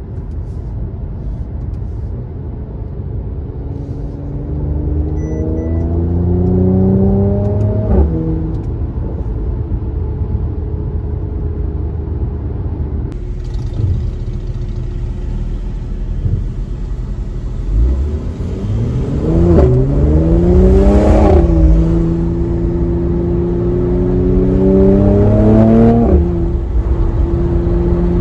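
Mercedes-AMG C43's twin-turbo V6 and exhaust heard from inside the cabin, the car accelerating through the gears. The engine climbs in pitch three times, each pull cut off by a sudden drop at an upshift, the last two pulls back to back, with steady running in between.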